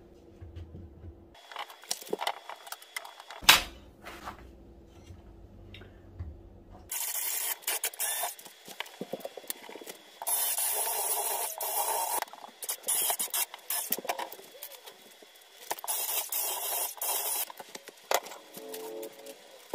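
Cordless drill driving screws into a shelf frame in four runs of one to two seconds each, in the second half. Before that come scattered knocks and clicks of the shelf parts being handled, one loud knock about three and a half seconds in.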